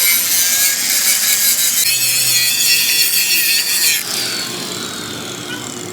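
Power tool working metal with a loud, harsh high-pitched grinding noise; about four seconds in it is released and winds down with a falling whine.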